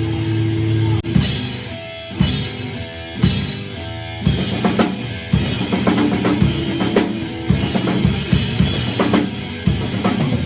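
Rock band playing an instrumental stretch of a song. Held low notes ring at first, with a drum hit about once a second. From about four seconds in, the drum kit drives a fast steady beat of bass drum and snare.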